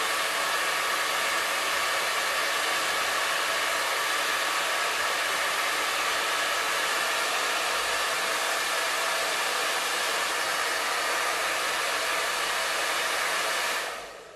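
Handheld hair dryer running on its cool setting, a steady rush of air with a faint motor hum, held close to a wig's lace hairline. It switches off near the end.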